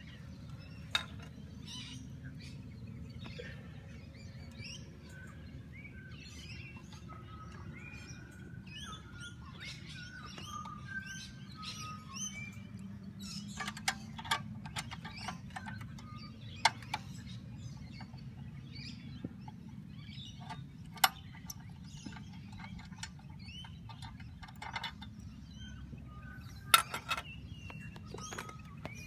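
Birds chirping and singing, with a few sharp metallic clicks and taps as a spanner works the bolt of the mount's metal pole collar, loudest around the middle and near the end. A steady low rumble lies underneath.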